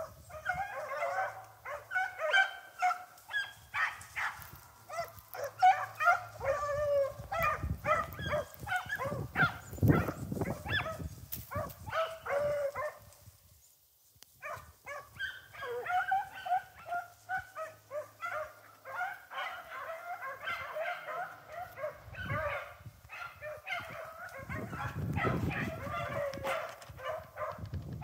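A pack of rabbit dogs baying and yelping together, hot on the trail of a running swamp rabbit. The chorus of overlapping cries falls quiet for a second or two about halfway through, then picks up again.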